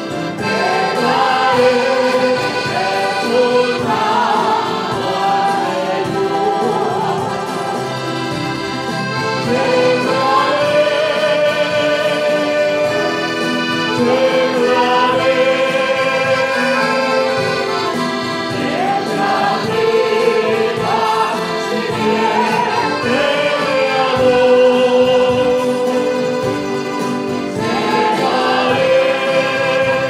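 Church choir singing a Spanish-language hymn, accompanied by accordion and mandolins.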